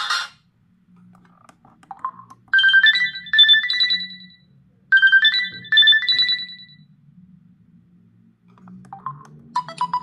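LG Tribe KS360 mobile phone's loudspeaker playing a short ringtone: a rising phrase of a few bright notes, played twice with a short gap between. Near the end a different, faster and busier ringtone starts.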